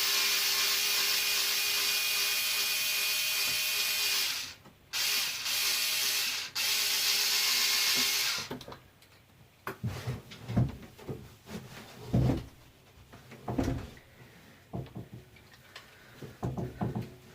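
Small electric screwdriver running steadily as it backs out the stock wheelie-bar screws. It stops briefly twice and cuts off about eight seconds in, followed by scattered small clicks and knocks of screws and parts being handled.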